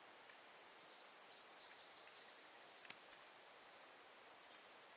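Near silence: faint outdoor background, with a thin, faint high-pitched sound through most of it that fades out shortly before the end.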